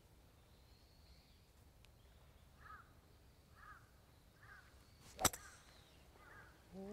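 A single sharp crack of a golf club striking the ball about five seconds in. Before and after it, a bird calls faintly several times.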